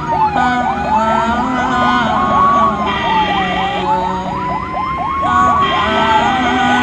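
Ambulance siren sounding two patterns at once: a slow wail that rises for about two seconds and drops back, over a fast yelp of several quick rising sweeps a second. A steady higher tone cuts in briefly about three seconds in and again near the end.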